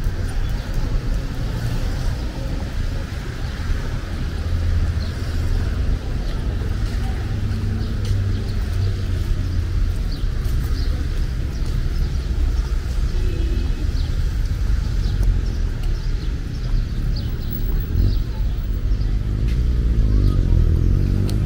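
Street traffic ambience: a steady low rumble of motor vehicles, with one vehicle passing close and louder near the end.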